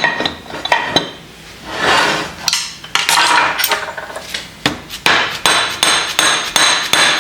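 Metal parts of a Kurt milling vise knocking and clinking against each other as it is handled and worked on, many sharp knocks with a metallic ring, with two longer, smoother sounds about two and three seconds in.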